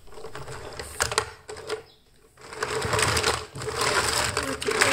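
Small plastic toy cars being handled and pushed across a tabletop: a few sharp plastic clicks about a second in, then long stretches of continuous rattling as their wheels roll.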